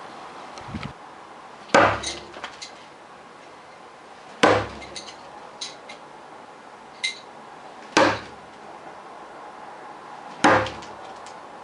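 Steel bo-shuriken throwing spikes striking a target four times, one spin throw every few seconds, each hit followed by a few light metallic clicks.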